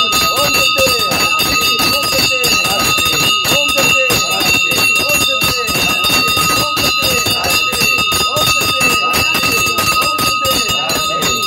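Bells ringing without pause over a dense din of rapid percussive strikes, with short rising and falling voice-like calls mixed in.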